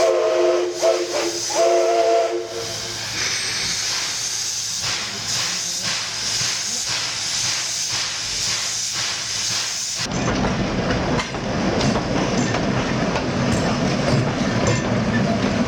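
Steam locomotive whistle sounding a chord in two short blasts, followed by a steady hiss of escaping steam. About ten seconds in the sound changes abruptly to the rumble and clatter of a train running on the rails.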